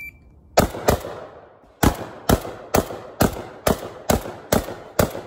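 Beretta 1301 Comp Pro 12-gauge semi-automatic shotgun firing ten rapid shots at steel targets: a quick pair, a pause of about a second, then eight more at about two shots a second.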